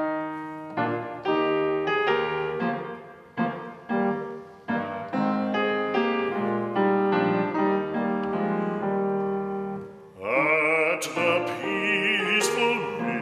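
Grand piano playing the introduction to a 1782 English art song: a string of struck chords, each fading. About ten seconds in, a baritone voice enters singing with a wide vibrato, the piano going on beneath it.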